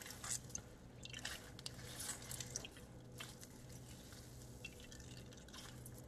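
Faint wet squelching and dripping as a nut milk bag of oat and almond pulp is squeezed by hand and milk runs into a bowl: irregular soft crackles, busiest in the first three seconds.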